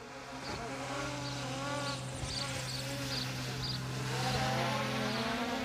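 DJI Mini 3 Pro drone's propellers buzzing, their pitch shifting up and down as the motors change speed, growing louder as the drone comes closer.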